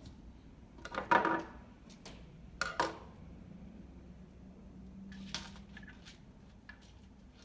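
Dried seed pod rattling as it is shaken: a few short rattles, the first and loudest about a second in.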